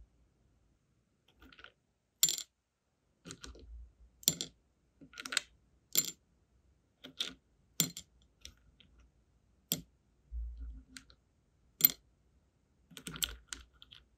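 Small sealing wax beads clicking as metal tweezers pick them out of a plastic compartment box and drop them into a metal wax melting spoon. There are about ten sharp, separate clicks, roughly one a second, starting about two seconds in.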